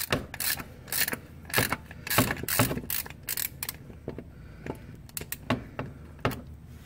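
3/8-inch ratchet clicking in quick runs as it turns an 86 mm cap-type oil filter wrench, unscrewing the oil filter housing cap on a Volvo Drive-E 2.0-litre four-cylinder. The clicks thin out over the last few seconds.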